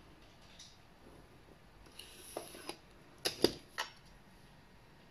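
Plastic drawing instruments handled on a drafting board: a soft rustle about two seconds in, then three quick sharp clicks as the set square and ruler are set down against the board.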